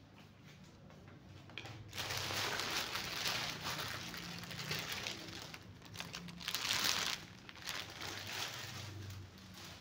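Thin clear plastic bag crinkling and rustling as it is gathered up and pulled away by hand, in uneven bursts from about two seconds in until near the end.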